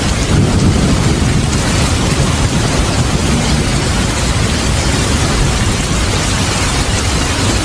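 Steady heavy rain with a low, continuous rumble of thunder.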